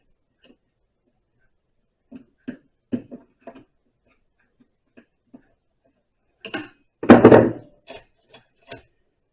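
Scattered metal clicks and clinks of a chainsaw, its chain and hand tools being handled, with a louder clattering knock about seven seconds in.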